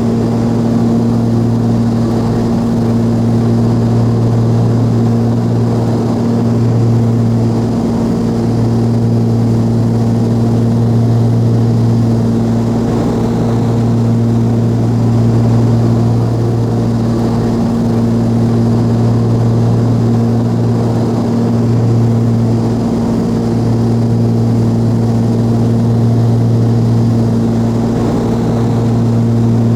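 Twin Continental TSIO-520 engines and propellers of a Cessna 340A running steadily: a deep, even drone with a slow pulsing beat that swells and fades every few seconds.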